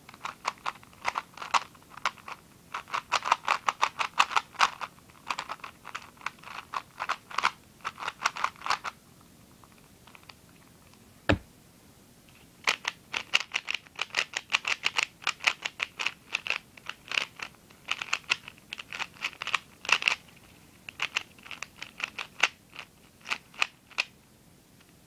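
Plastic 3x3 speedcube being turned rapidly by hand: fast runs of clicking and clacking as the layers snap round. The turning stops for about three seconds in the middle, broken by one sharper knock, then the rapid clicking resumes.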